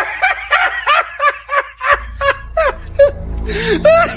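A man laughing in a long, unbroken run of short rising-and-falling bursts, about four a second. A low steady hum comes in about two seconds in.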